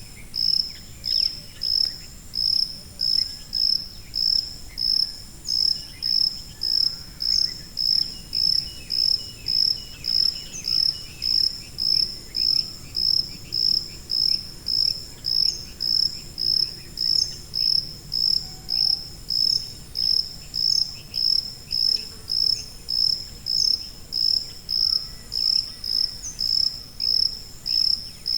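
A cricket chirping in an even, unbroken rhythm, a little under two chirps a second, each chirp a high ring near 5 kHz.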